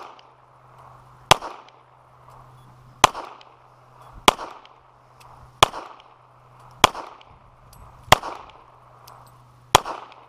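Handgun firing seven single shots at a steady pace, about one every one and a half seconds, each crack followed by a short echo.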